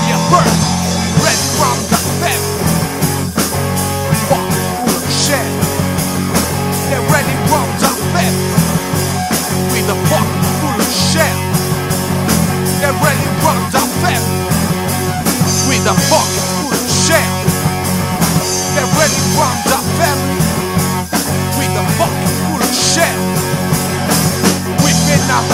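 Heavy rock band playing: drums beating a steady rhythm over a thick bass and distorted guitar riff.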